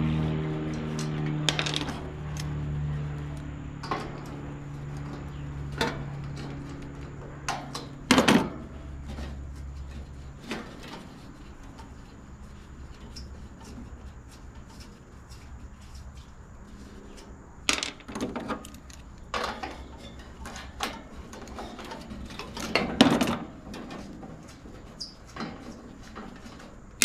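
Scattered metallic clinks, clicks and clanks of hand tools and sheet-metal parts as the fan motor of a Goodman air-conditioner condenser is unbolted from its top grille, with two louder clanks about eight seconds in and near the end.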